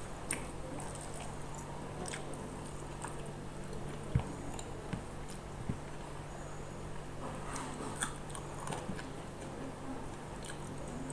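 Close-up eating sounds: a person biting and chewing food, with scattered small clicks and a few sharper knocks, over a steady low hum.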